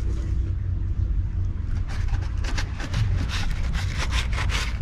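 A cat rubbing its face and fur against the GoPro, a quick run of scratchy brushing noises in the second half, over a steady low wind rumble on the microphone.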